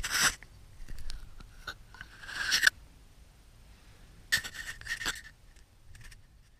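Scraping and rubbing of 3D-printed plastic vise parts being handled on a sheet of paper, in three short bursts, the middle one swelling before it stops.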